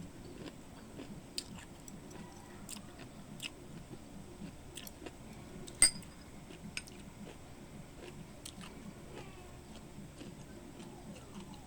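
Someone eating: quiet chewing with scattered light clicks, the loudest about six seconds in.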